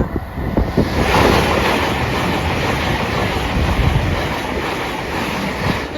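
A long train passing at speed: a steady rush of wheel and air noise that builds about a second in and holds, with low rumble, faint wheel knocks and wind buffeting the microphone.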